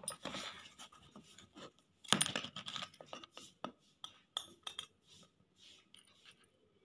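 A spoon clinking and scraping against dishes while spice powder is measured out: a scatter of light clicks, with a denser run of clinks about two seconds in and single ticks after.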